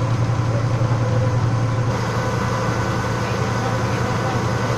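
A ferry's engine running at a steady pace, a constant low hum.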